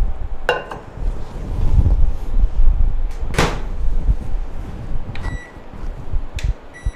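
Onida Power Barbecue 28 microwave oven being closed and set: the door shuts with a thud about three and a half seconds in, then short electronic beeps near the end as the control dial is turned.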